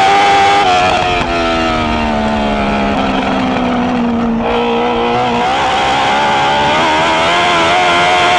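Dwarf race car's motorcycle-derived engine running hard, heard from inside the car. The revs drop about a second in as the throttle comes off for a turn, hold lower through the middle, then climb back up from a little past halfway as the driver gets back on the power.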